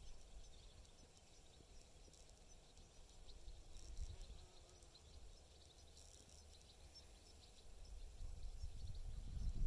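Faint wind buffeting the microphone in open countryside, growing louder near the end, with faint high-pitched chirps scattered through it.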